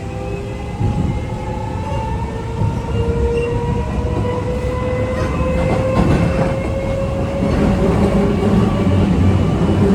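Keio 8000 series train's Toshiba permanent-magnet (PMSM) VVVF inverter and traction motors, heard from inside a motor car, whining in several high tones that rise steadily in pitch as the train accelerates. Wheel-on-rail rumble grows louder underneath, with a few rail-joint clacks. This set is known for an unusually loud, high-pitched motor noise, like the Seibu 40050 series.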